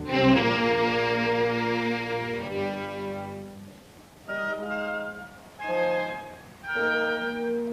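Orchestral music led by strings: a full held chord that dies away, then three short, separate phrases with gaps between them.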